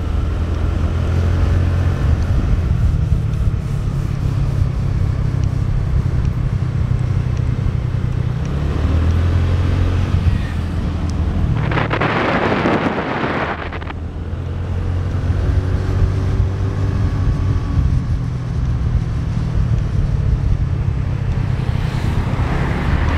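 Motorbike engine running steadily under way, its note shifting a few times with the throttle, with wind hissing on the microphone. About twelve seconds in, a loud rush of noise lasts a couple of seconds.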